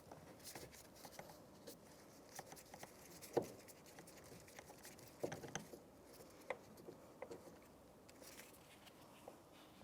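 Faint scattered clicks and light taps of a Phillips screwdriver backing out a screw from a car's plastic interior door panel, with a sharper knock about three and a half seconds in.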